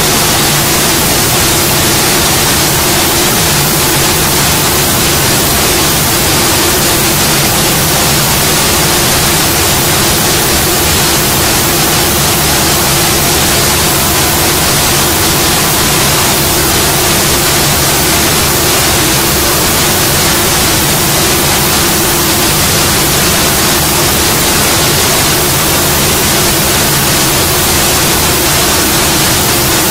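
CNC router spindle cutting a wood door panel: a loud, steady hiss with a low steady hum beneath it, unchanging throughout.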